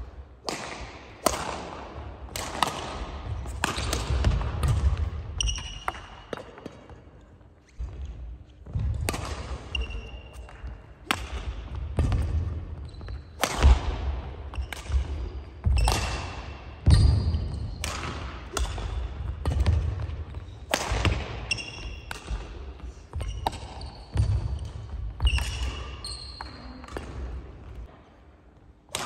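Badminton singles rallies on a wooden sports-hall floor: sharp racket hits on the shuttlecock, feet thudding and shoes squeaking briefly as the players move. There is a short lull about seven seconds in between rallies.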